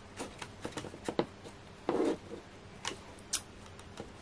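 Craft knife cutting through card: a run of small clicks and scratchy ticks, with a louder scuff about two seconds in.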